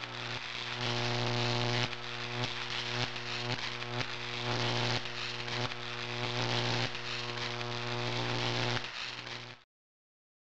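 Electronic intro soundtrack: a low buzzing drone with hiss above it, shifting every second or so, that cuts off suddenly near the end.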